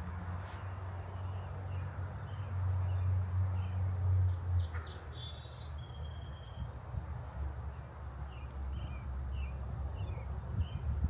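Wild birds chirping in short scattered notes, with one clearer ringing call about halfway through, over a steady low rumble.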